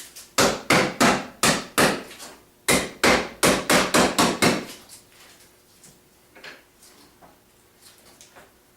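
About a dozen sharp knocks in two quick runs, roughly three a second, then only faint clicks: lids of finish containers being tapped shut.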